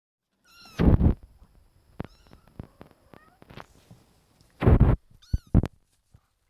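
Kitten mewing in high-pitched calls, loudly about a second in and again around five seconds, with scattered light clicks and knocks in between.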